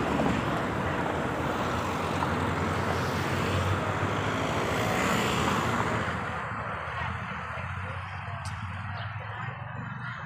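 A car driving past close by: steady tyre and engine noise that drops away about six seconds in, leaving quieter street traffic noise.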